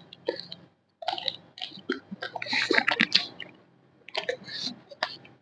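Close-miked mukbang eating: a person chewing and crunching crispy fried snacks, in short bursts of crackly, clicking crunches with brief pauses between bites.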